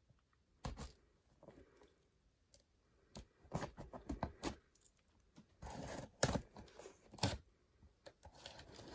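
Cardboard box being opened: packing tape torn and cardboard handled in irregular scratchy tearing strokes and sharp cracks, strongest in the second half.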